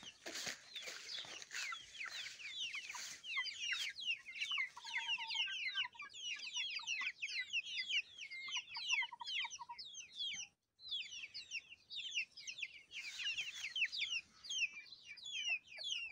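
A flock of young chickens peeping without pause: many short, high, falling peeps, with a few quick lower trills in the middle. Rustling footsteps through grass in the first few seconds.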